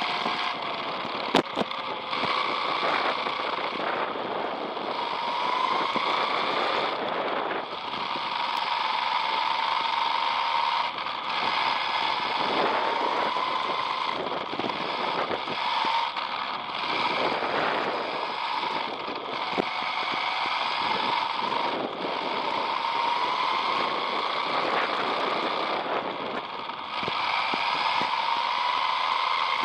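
Electric motor and gear drive of a Tamiya M-05-based radio-controlled car heard from a camera mounted on the car. The whine rises in pitch with each burst of throttle and drops away between them, over a steady hiss of the tyres on asphalt. There is one sharp click near the start.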